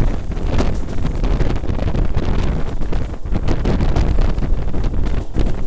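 Wind buffeting the microphone held out of a moving passenger train's window, over the steady rumble of the train running on the rails.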